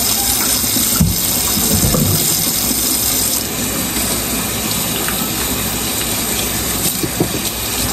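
Water running from a kitchen faucet into a stainless-steel sink as hands are lathered with dish soap and rinsed under the stream.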